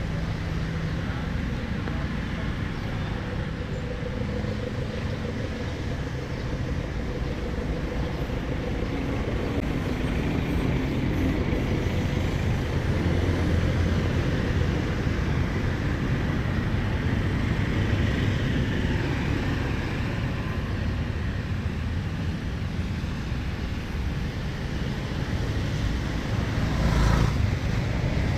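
Street traffic: a continuous mix of vehicle engines and tyres passing, swelling a little after about ten seconds, with a louder vehicle going by near the end.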